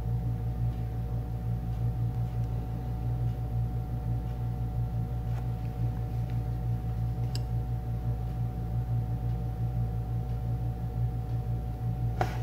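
Steady low hum with a thin steady tone above it, and a few faint ticks, one clearer click near the end.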